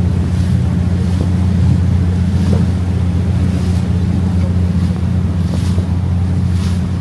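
Sightseeing river boat's engines running with a steady low drone, with water hissing along the hull, swelling briefly every second or so, and wind on the microphone.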